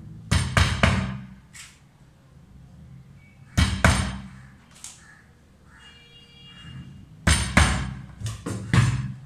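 Hammer tapping a screw into a wooden block to start it, in three quick bursts of sharp knocks: about three blows a second in, two near the middle, and five or six more near the end.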